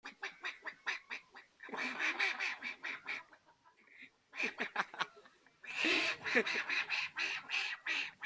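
Strange duck-like quacking calls: quick runs of short quacks, with louder, denser stretches of overlapping quacking about two seconds in and again from about six seconds on.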